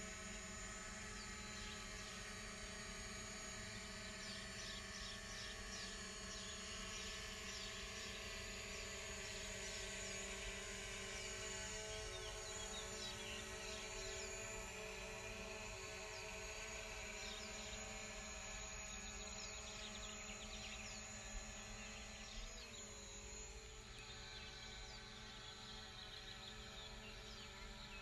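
Multirotor drone's motors and propellers buzzing steadily, with a brief wobble in pitch about 22 seconds in. Short high chirps sound over it.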